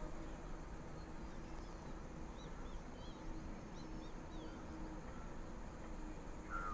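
Open-air ambience: a steady low rumble with a faint hum, and a few short, faint bird chirps about two to four seconds in.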